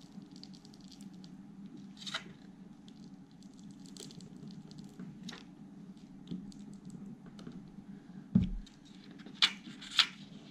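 Small screwdriver scraping and prying in the gap between two plastic-cased sealed lead-acid batteries held together by a double-sided sticky pad: faint scratching with scattered clicks, a knock about eight seconds in and two sharp clicks near the end, over a steady low hum.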